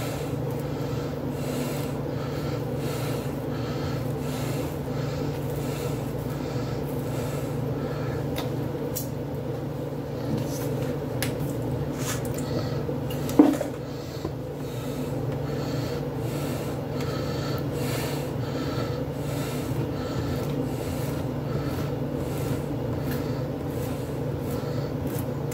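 Knife spreading butter on a slice of bread: repeated short scraping strokes over a steady low hum, with one sharp knock about halfway through.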